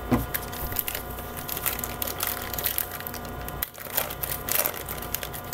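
Baseball trading card pack and cards being handled close to the microphone: irregular small crackles and clicks of the wrapper and card stock.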